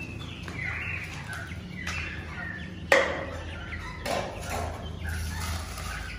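Young fowl calling with short chirps throughout. There is one sharp knock about three seconds in, and near the end seed rattles as it is poured from a tin into a plastic feeder.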